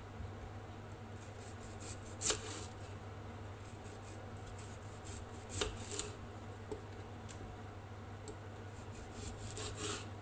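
Serrated knife sawing through a raw potato and knocking on a wooden cutting board: three short bouts of cutting, about two, six and ten seconds in, with small clicks between, over a steady low hum.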